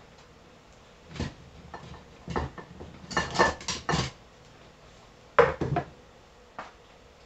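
Metal cookware clattering: a skillet, a baking tray and utensils knock against each other and the stovetop in a string of separate clanks, bunched together about three seconds in and again about five and a half seconds in.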